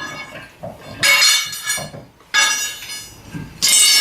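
Three hammer blows on steel car suspension parts, each one ringing, about a second and a quarter apart. The blows knock one part down to separate it at the bottom ball joint during a hub bearing repair.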